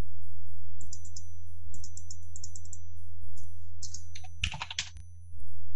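Computer keyboard being typed on: quick runs of sharp key clicks, with a louder cluster of clacks about four and a half seconds in, over a faint steady low hum.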